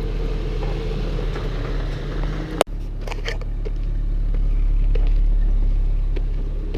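Toyota AE71 Corolla's engine running steadily through a short drive, with one sharp click about two and a half seconds in and the sound swelling a little around five seconds.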